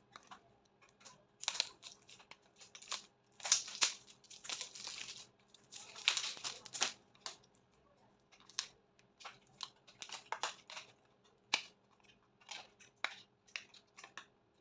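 Small paperboard makeup box being handled and opened by hand: rasping scrapes and tearing of the card in the first several seconds, then a run of short taps, clicks and rustles as the flaps and insert are worked.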